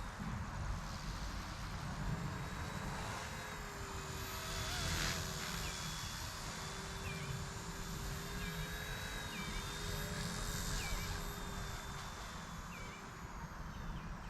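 Eachine E119 mini RC helicopter hovering: a steady whine from its coreless main motor and rotor, wavering slightly in pitch as it holds and drifts, over low rumble from wind on the microphone. A few faint short chirps come in the middle.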